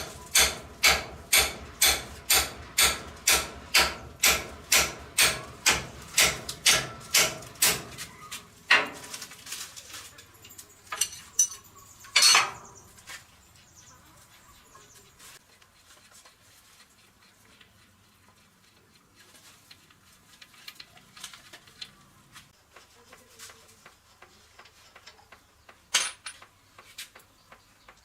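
Hammer blows ringing on metal, steady at about two strikes a second for some eight seconds, then a few scattered metal clinks and knocks, one louder clank about twelve seconds in.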